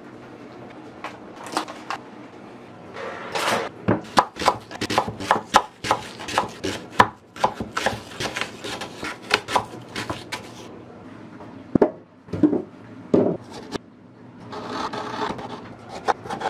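Kitchen knife cutting apples and limes on a wooden cutting board: a quick run of sharp knife taps on the board through the middle, with softer slicing and scraping sounds before and after.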